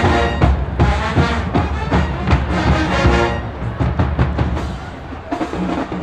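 HBCU marching band playing, brass over a heavy drum section. About halfway through the band drops to a quieter, thinner passage.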